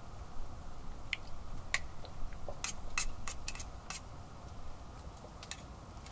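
A spoon clicking and scraping against a bowl in a series of short, irregular clinks as someone eats, most of them in the first four seconds, with a low steady rumble underneath.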